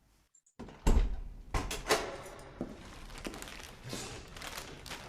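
Recorded sound effect of someone arriving home: a door opening and closing, with several knocks and thuds and some rustling.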